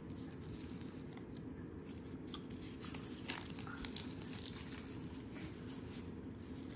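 Papery outer skin being peeled off a white onion with a knife and fingers: a few short dry tearing and crinkling rustles, mostly two to four seconds in, over a low steady room hum.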